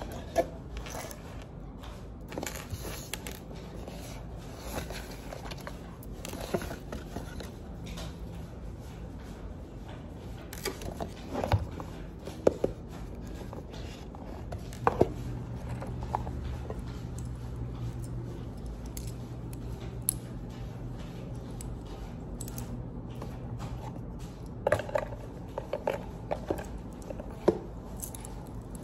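Cardboard gift boxes being handled on a table: lids lifted off and set down, with scattered light knocks, taps and scrapes.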